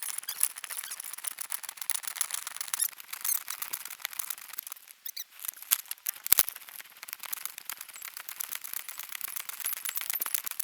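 A person scrambling over rocks: a dense run of scrapes, clicks and rustles of clothing and gear, with one sharp knock about six seconds in.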